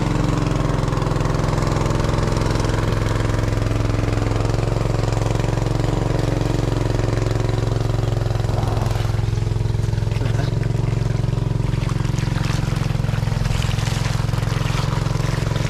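A small engine running steadily at an even speed throughout.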